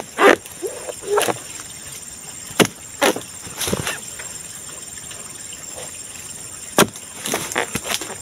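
Pole-mounted harvesting chisel jabbing into the stalk at the base of an oil palm fruit bunch, giving a dozen or so sharp, irregular chops, some in quick pairs. A steady high buzz of insects runs behind.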